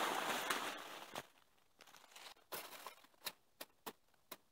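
Banana plant toppling into the undergrowth: a loud rustle of its big leaves that fades over about a second, then a handful of sharp snaps and crackles of leaves and stems.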